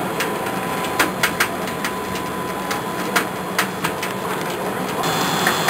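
Snack shape-cutting machine running: a steady motor hum with irregular sharp clicks and taps.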